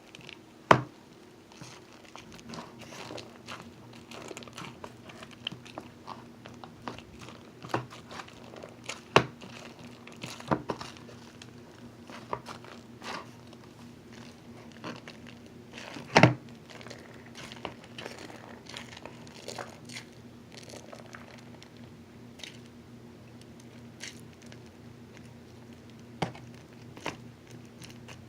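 Hands squishing and stretching sticky fluffy slime, with irregular sharp pops and crackles as trapped air bubbles burst. A faint steady low hum runs underneath.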